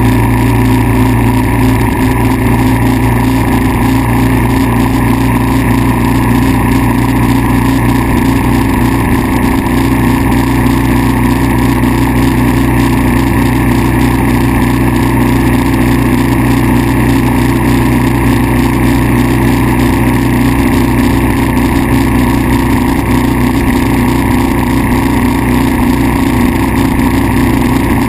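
Kawasaki KLR650's single-cylinder four-stroke engine running steadily at an even speed. The bike has a rare, intermittent misfire that new ignition parts have not cured.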